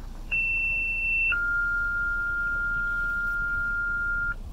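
Electronic beep tones: a higher-pitched pure beep for about a second, then straight into a lower steady tone held for about three seconds before it cuts off, over a faint low background rumble.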